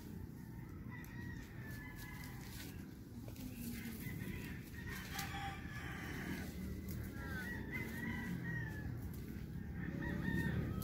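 Chickens clucking and a rooster crowing, faint, over a low steady rumble.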